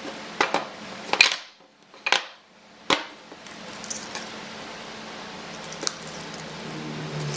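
Sharp knocks and clacks of a wooden block and hand tools being handled on a workbench, five in the first three seconds, the loudest about a second in. After that a steady low hum with a faint click or two while a tape measure is pulled out and wound back.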